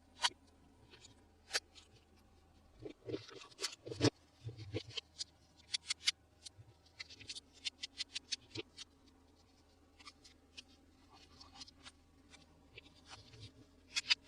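Hands handling plastic toys and packaging: scattered light clicks and taps, with a busier run of quick clicks in the middle.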